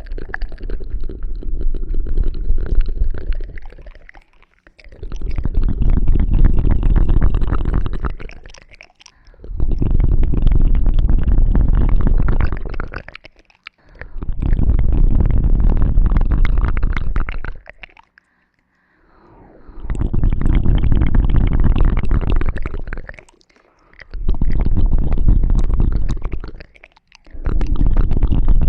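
Ear-cleaning ASMR: close-up scratching and rubbing on the microphone, a dense crackle of clicks over a deep rumble. It comes in bouts of three to four seconds, with brief pauses between.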